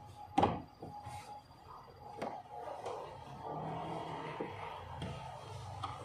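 Sharp plastic and metal clicks and knocks of hands working on a car's seat-belt fittings and interior trim, the loudest about half a second in, with smaller ones over the next two seconds. A low steady hum comes in about three and a half seconds in.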